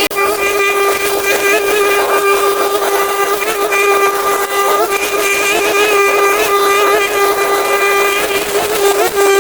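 A small engine or motor running steadily at one constant, fairly high pitch.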